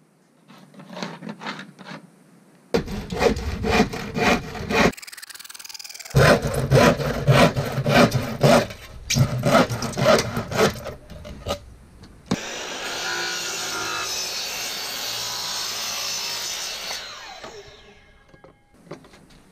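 Hand saw cutting through 1/2-inch plywood: a few short starting strokes, then quick back-and-forth strokes, about three a second, with a brief pause midway. About twelve seconds in the strokes give way to a steady rushing noise lasting about five seconds, which then fades out.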